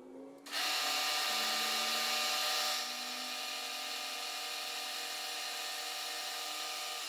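Milling machine spindle running while a small end mill cuts a shallow spot face into a small metal casting: a steady whine with a hissing cutting noise that starts about half a second in, eases a little about three seconds in and cuts off sharply at the end.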